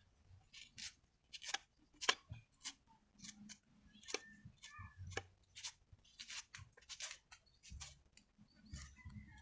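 Large knife paring the corm of a banana sucker, a series of short, sharp scraping cuts at an irregular pace of about one or two a second.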